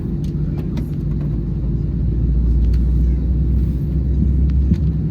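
Steady low rumble inside the cabin of an Airbus A320 during pushback and engine start. It grows a little louder about two seconds in, with a few faint clicks over it.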